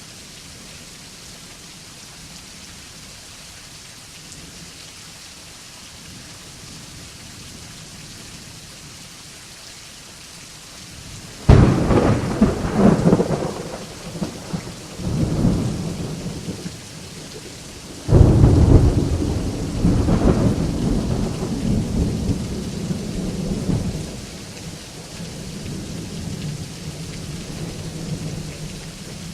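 Steady rain falling throughout. About eleven seconds in, a sudden clap of thunder rolls into a rumble lasting several seconds. A second clap about six seconds later rumbles on for several more seconds before settling to a low roll.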